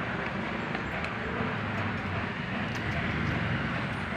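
Steady rumble of road traffic going by.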